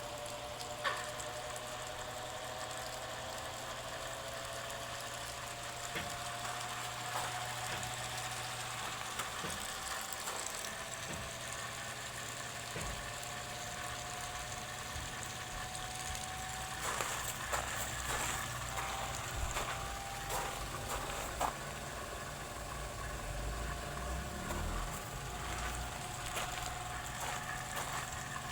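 Sofia 15 kg spin dryer running, its motor noisy after agitating the clothes. A whine rises slowly over the first half as it spins up, a low rumble grows, and irregular knocks and clicks come through, most around two-thirds of the way in.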